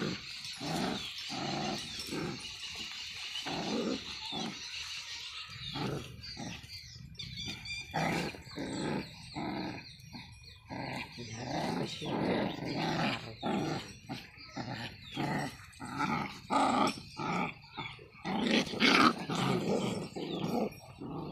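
Two puppies growling in short, rapid bouts as they wrestle and bite at each other, with a few louder growls near the end.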